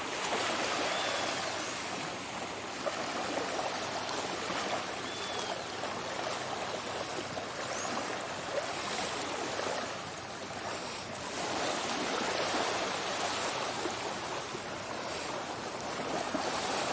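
Small waves lapping and washing up on a sandy beach, a steady wash that swells and eases every few seconds.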